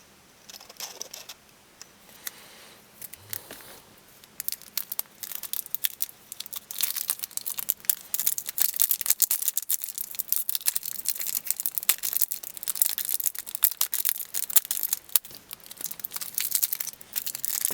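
A Panini Prizm basketball card pack's foil wrapper being crinkled and torn open by hand. The crackling is sparse at first and gets much busier and louder from about six seconds in as the pack resists opening.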